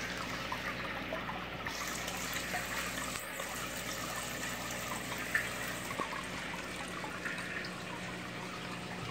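Steady trickling and splashing of water in an aquarium, over a low steady hum.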